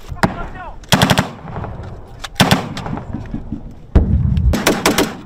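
Automatic weapon fire in three short bursts, the last and longest lasting about a second, with echoes rolling between the bursts.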